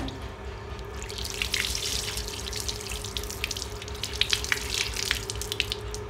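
Running water splashing over a large cucumber as it is washed by hand, a steady hiss with many small splashes and drips onto a concrete floor. The sound cuts off abruptly at the end.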